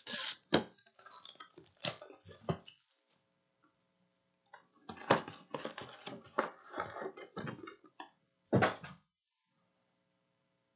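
A cardboard trading-card box being torn open and its foil packs pulled out and handled: irregular rustling, tearing and crinkling in two stretches, with a short pause between them. It goes quiet near the end.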